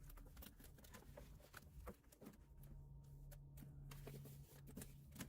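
Near silence with faint scattered clicks and rustles of hands working on the door's plastic vapor barrier and wiring connectors.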